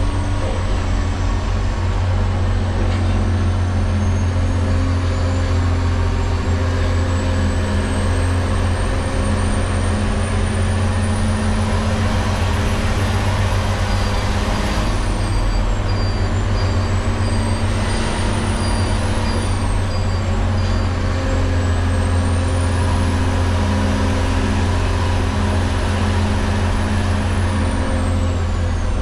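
Diesel engine of an LGMG CMT96 off-highway dump truck running steadily under way, a constant deep drone, with a faint high whine that rises and falls several times.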